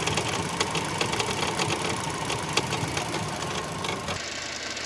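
Chevrolet Cobalt's 1.5 L B15D2 engine idling with a fast, continuous clattering tick, a little quieter near the end. The rattle comes from the failed, dirt-clogged belt tensioner pulley assembly.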